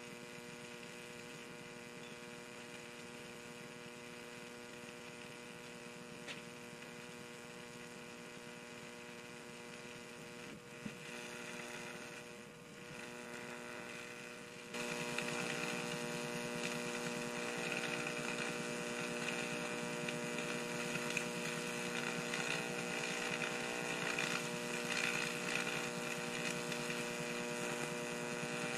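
A 15,000-volt high-voltage supply buzzes with a steady mains hum as it arcs into a lithium-ion pouch battery. About halfway through it jumps louder, with a rushing hiss and small crackles added as the battery flares and burns at the electrode.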